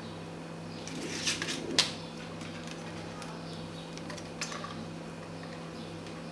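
Dry rice paper wrappers crackling and rustling as the sheets are handled and pulled apart, with a sharp crisp snap near two seconds in. A steady low background hum runs underneath.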